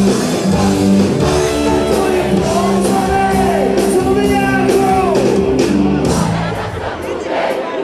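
Live rock band playing in a large hall, with held keyboard chords played on Korg keyboards, drums and singing. The music eases off near the end.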